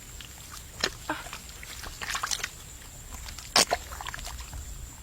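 Wet slaps and splashes of hands working through mud and shallow water: a scatter of short, sharp sounds, the loudest about three and a half seconds in.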